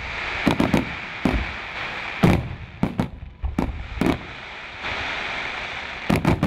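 Aerial fireworks bursting: a string of sharp bangs, some in quick clusters, over a continuous crackling hiss from the shells. The loudest bang comes about two seconds in.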